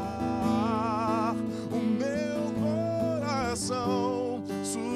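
Male vocalist singing a slow worship song into a microphone, holding long notes with a wide vibrato over a steady instrumental accompaniment.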